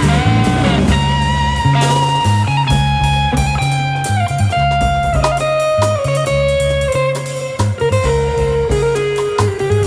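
Live jazz-rock fusion trio of electric guitar, electric bass and drum kit. The guitar plays a sustained lead line that steps gradually down in pitch over a driving bass line and drums.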